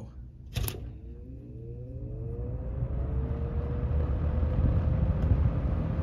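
1981 Lakewood P-223 20-inch box fan switched on at low speed. A click about half a second in, then the motor and blades spin up with a rising whine that levels off into a steady tone, while the rush of air builds louder.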